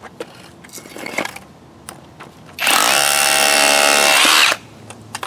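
Cordless hammer drill starting up about two and a half seconds in and hammering its spiral bit into a block of cemented-together bricks for about two seconds, then stopping. A few light knocks come before it starts.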